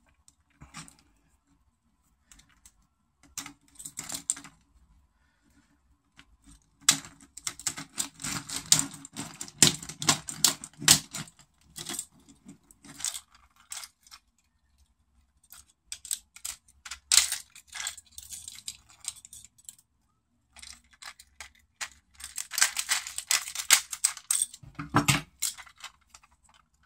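Steel split ring, inline single hook and split-ring pliers clicking and clinking as the hook is worked onto the split ring at the tail of a stickbait lure. The clicking comes in several spells of rapid clicks, the busiest in the middle and again near the end.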